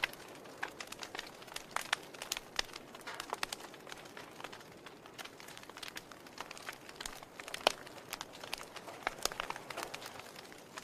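Wood fire burning in a fireplace: logs crackling with frequent irregular pops and snaps over a soft hiss, one pop louder than the rest about three seconds before the end.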